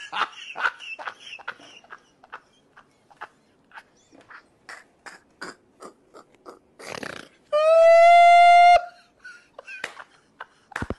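A man laughing hysterically in short, gasping bursts. About two-thirds of the way through comes one loud, high-pitched held squeal lasting just over a second.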